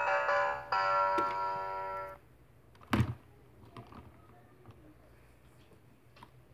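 Electronic beeping tune from a VTech Flipsies toy salon playset, cutting off about two seconds in. About a second later comes one sharp plastic click, then a few faint light clicks as the plastic doll is handled on its stand.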